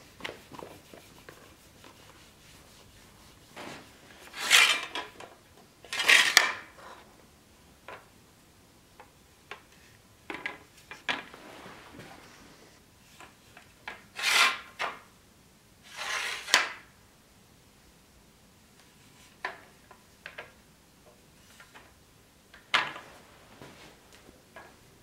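Rubbing strokes from a cloth wiping down a steel longsword, four loud ones of under a second each in two pairs, with scattered light clicks and knocks as the sword is handled on a leather-covered anvil.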